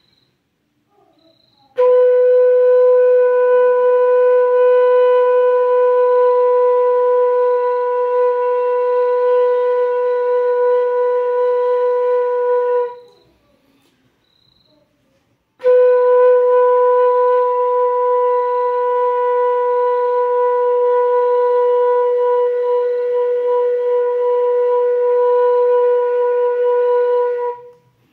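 Bansuri (bamboo flute) holding one steady note for about eleven seconds, then, after a short pause for breath, the same note again for about twelve seconds: long-tone practice on a sargam note.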